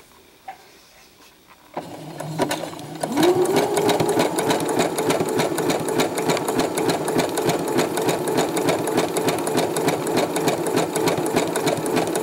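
Electric sewing machine stitching a zigzag seam through folded fabric. It stops at the start, starts again about two seconds in, and by about three seconds in has sped up with a rising motor whine to a steady run with rapid needle ticks.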